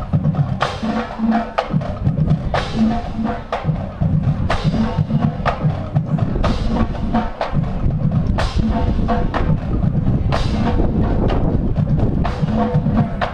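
Marching band drumline playing a cadence: rhythmic drumming with low drum tones and cymbal crashes that ring out every second or two.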